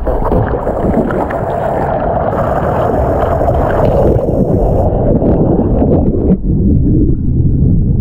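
Rushing whitewater and wind buffeting an action camera mounted on a surfboard as it rides a breaking wave, a loud steady rush that thins out about six seconds in.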